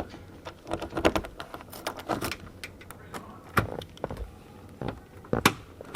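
Irregular metallic clinks, knocks and jangling, a few louder knocks among them.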